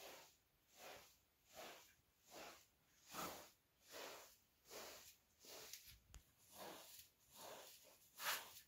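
Straw broom sweeping a carpet: soft, rhythmic swishes, roughly one stroke every second, with one louder stroke near the end.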